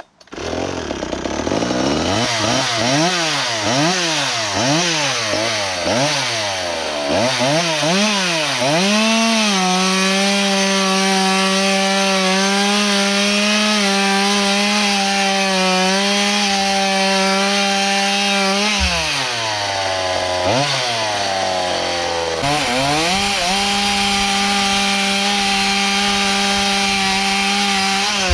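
Small two-stroke chainsaw running on a methanol fuel mix with castor oil, blipped up and down quickly for several seconds, then held at high revs. Near the end the revs drop off twice briefly before it is held at high revs again.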